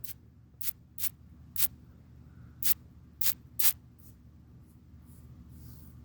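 A run of sharp crackling clicks, about eight at uneven intervals over four seconds, then a faint brief hiss near the end, over a low steady hum.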